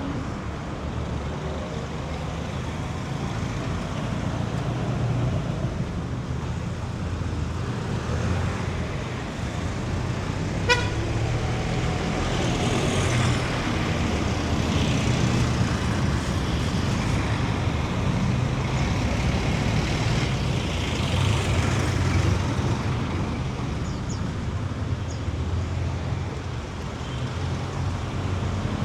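Steady city street traffic, with motor vehicle engines running and passing. About ten seconds in, a single very short, sharp horn toot stands out as the loudest moment.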